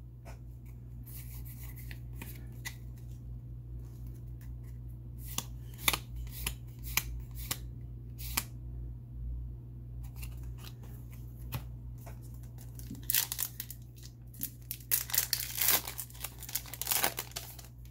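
Trading cards being handled and flicked, with scattered sharp clicks through the middle. Then a foil booster pack crinkles and tears open in the last few seconds.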